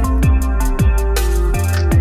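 Electronic music in a drum-and-bass style: heavy sub-bass, falling bass sweeps about every half second, and sharp drum hits.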